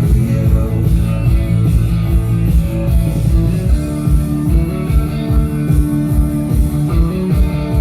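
Rock music with guitar and a steady drum beat, played loud over a party sound system.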